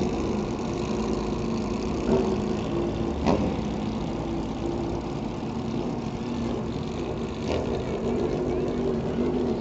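Several sport motorcycle engines running as the bikes ride past, a steady engine note that shifts in pitch now and then, with a few short sharp sounds.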